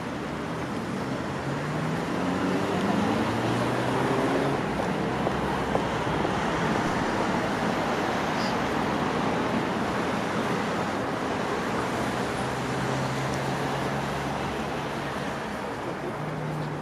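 City street traffic passing steadily, with a vehicle engine rising in pitch as it pulls away a few seconds in.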